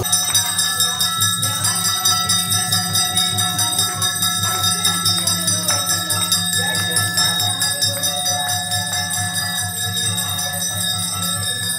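Hindu devotional song: voices singing over held, sustained instrumental tones.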